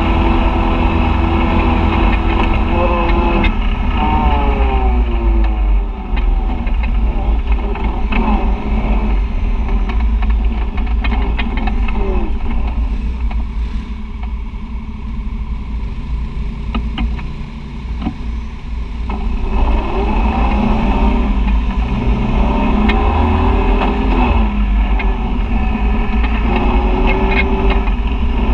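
Side-by-side UTV engine running under way on a dirt trail, its pitch rising and falling with the throttle. It eases off lower and quieter about halfway through, then climbs in pitch again as it picks up speed.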